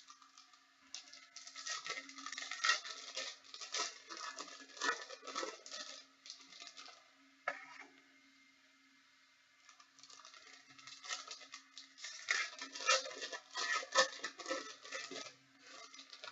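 Crinkling and tearing of packaging being handled, in two stretches of dense, irregular crackles, over a faint steady hum.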